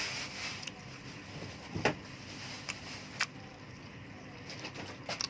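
Eating sounds close to the microphone: quiet chewing with a few sharp clicks, like a utensil tapping a plate, spaced a second or so apart.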